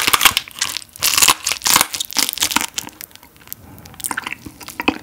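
Close-miked crunching and crackling of a bite into spicy marinated raw crab (yangnyeom gejang), loud and dense for the first two and a half seconds or so, then softer, scattered crackling as it is chewed.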